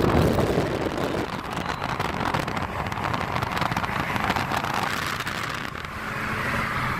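A car running at road speed, its engine a low steady drone under heavy wind noise on the microphone.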